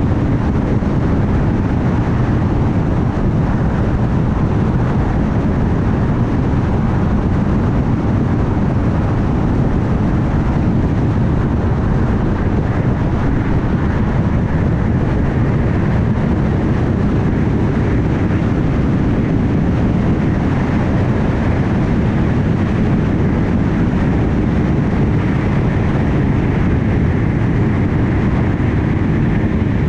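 Car driving at steady highway speed: an unbroken rush of tyre and road noise with engine hum, no changes in pace.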